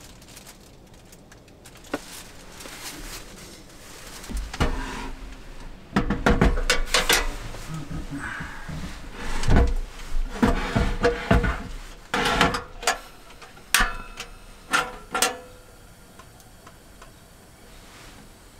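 Handling knocks and clatter as a portable gas heater is unpacked from its case and set on a wooden table: a run of sharp knocks, clicks and rustling that starts about four seconds in and dies away after about fifteen seconds.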